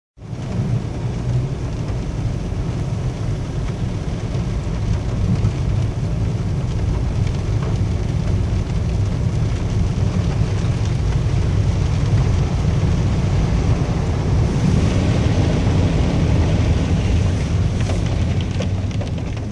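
Heavy rain on a car's roof and windscreen over the low rumble of the moving car, heard inside the cabin. About fifteen seconds in, a brighter hiss of water joins as the car drives through flood water.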